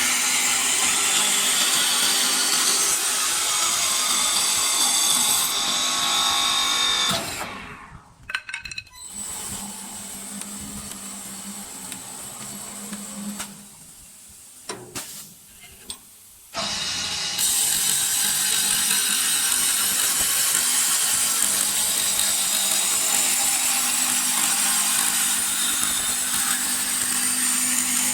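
Automatic wood lathe cutting a chair spindle, a loud steady hissing cut. About 7 seconds in the cutting stops, leaving a quieter machine hum with a few clicks, and it starts again about 17 seconds in.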